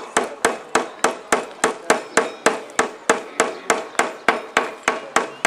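A hammer striking in quick, even blows, about four a second, that stop near the end.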